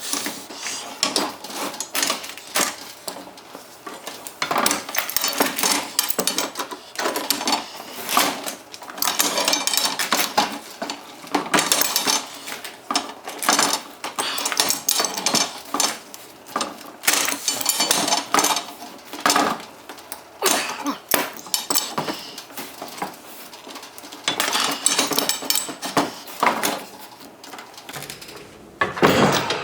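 Steel pipe and fittings clinking, scraping and clanking irregularly as the legs are worked into place on a steel-pipe target stand.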